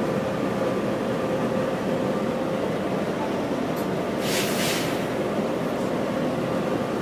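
A steady mechanical rumble with a held hum, and a short burst of hiss about four seconds in.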